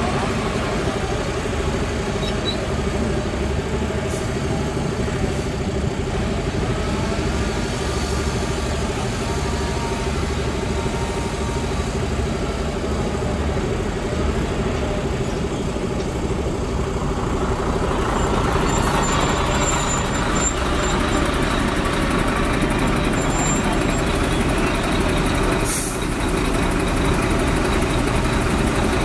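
Heavy diesel earthmoving machinery running steadily under load, growing louder and busier a little past halfway, with a single short clank near the end.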